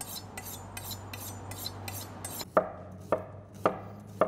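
A dull chef's knife drawn quickly along a honing rod, a rapid metal scraping of about four or five strokes a second, to touch up its edge. About two and a half seconds in, the knife starts slicing through an onion onto a wooden cutting board: four knocks, about two a second.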